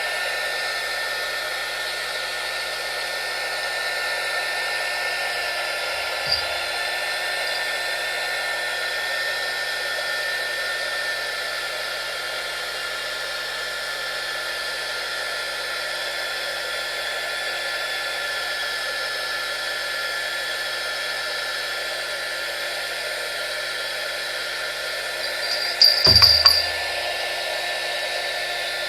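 Small electric heat gun blowing steadily, its fan motor giving an even whir with a few steady high tones. A short knock comes about six seconds in, and a louder brief clatter comes near the end.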